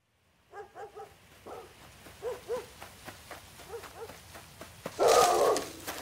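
A dog whimpering in short, high yelps, mostly in pairs, then one much louder, longer bark about five seconds in.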